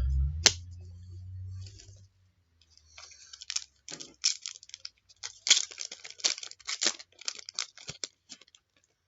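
Trading-card pack wrapper being torn open and crinkled, a scatter of short crackles and clicks over several seconds. A low rumble and a sharp click come in the first two seconds.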